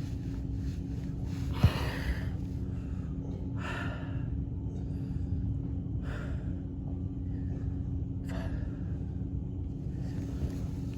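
A man breathing hard from exertion, sharply gasping out a breath about every two seconds, four times, over a steady low hum.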